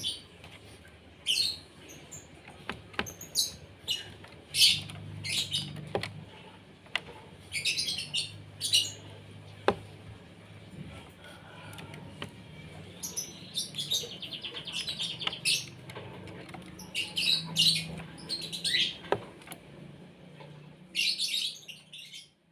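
Asian pied starling (jalak suren) calling: a string of short, loud whistles and chatters, with a rapid rattling trill around the middle, over a low steady hum.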